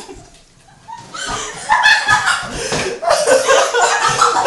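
People laughing, breaking out about a second in after a brief hush, with some talk mixed in.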